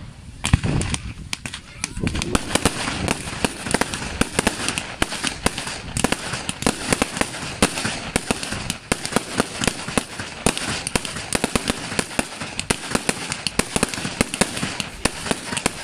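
Aerial fireworks: a deep shell burst about half a second in, then a dense, continuous run of rapid crackling pops from bursting shells.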